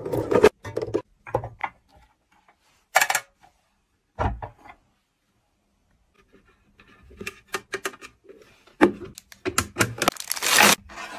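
Eggs set down one at a time into an egg box, making light knocks and clicks, with quiet gaps between them. Near the end comes a quick cluster of clatter and clicks as a round lidded tabletop bin is handled and its hinged lid flipped open.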